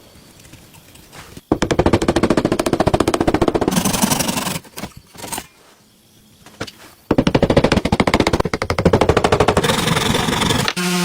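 Rapid, even mechanical clattering in two loud bursts of about three seconds each, separated by a short pause.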